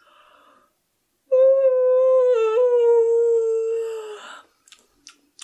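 A woman's long voiced yawn: a faint breath in, then one held open-mouthed 'aaah' lasting about three seconds that sinks slightly in pitch and trails off into a breathy sigh.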